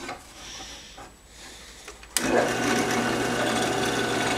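Drill press boring a hole into a model engine piston through a guide block. It starts suddenly about two seconds in and then runs steadily with a low motor hum and dense cutting noise.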